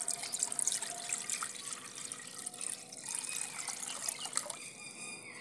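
A stream of water poured from a steel pot splashing into an empty iron kadhai and filling it, with a steady, fluttering splash that stops near the end.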